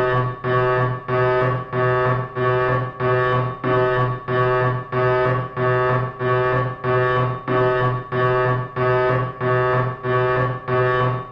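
Security alarm sounding: a buzzy electronic tone pulsing on and off at an even pace, about three pulses every two seconds.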